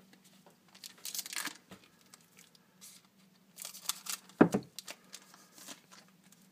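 Foil trading-card pack crinkling as it is handled, then scissors cutting it open, with one sharp knock about four and a half seconds in. A faint steady hum sits underneath.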